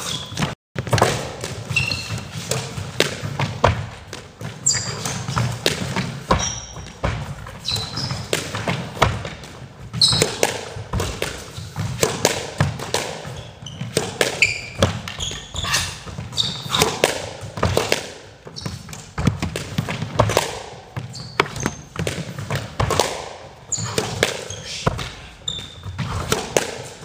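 Squash ball being hit back and forth with rackets and smacking the front wall during a drill, sharp hits coming every second or so, with short high squeaks of shoes on the court floor.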